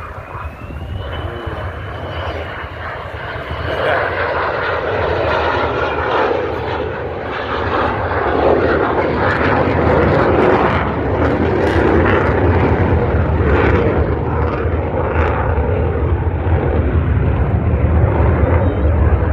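An F-35 fighter jet's single F135 turbofan passing low, its noise growing louder over the first four seconds and then staying loud, with a thin high whine in the first few seconds.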